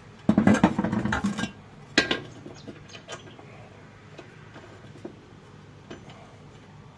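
Small loose metal hardware, the washers and bolt for a lawnmower blade, clattering and clinking as it is handled for about a second, then one sharp clink, followed by a few light ticks.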